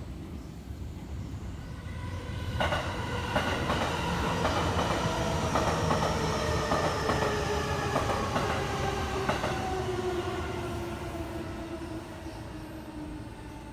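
A train passing close by: a swelling rumble with wheels clacking over rail joints, and a motor whine that slides steadily down in pitch before the sound fades away.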